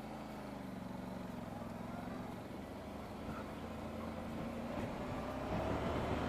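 Honda NC700X parallel-twin motorcycle engine running under way, with wind rush, heard from a camera on the chin of the rider's helmet. The engine note climbs over the last couple of seconds and the sound grows louder.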